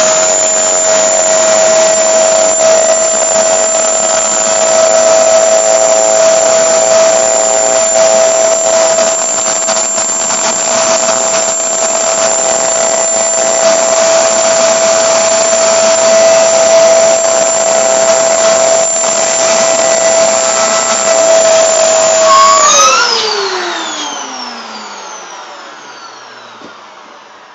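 Vacuum cleaner running steadily with a loud high whine, its hose pulling air through a vacuum-forming box to draw the heated plastic sheet down over the mould. About 22 seconds in it is switched off and the whine falls away as the motor spins down.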